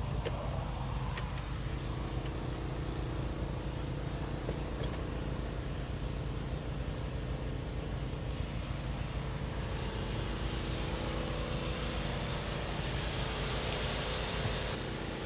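Car engine idling steadily, a low even hum with faint outdoor background noise.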